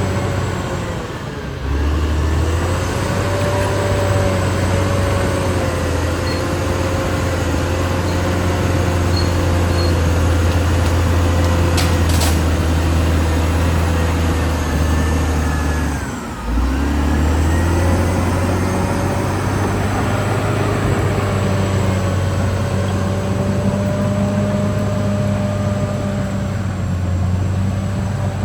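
Caterpillar D6R XL bulldozer's diesel engine running under load. The engine note sags twice, a little after the start and about halfway through, then picks back up.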